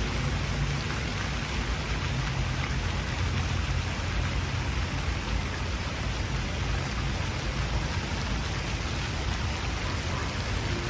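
Fountain jets splashing into a shallow reflecting pool: a steady hiss of falling water, with a low rumble underneath.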